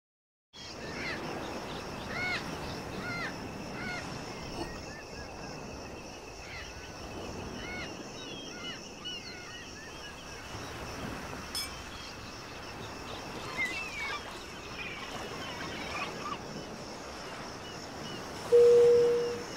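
Seagulls calling over a steady wash of sea surf. Near the end comes a short, loud, steady tone lasting under a second.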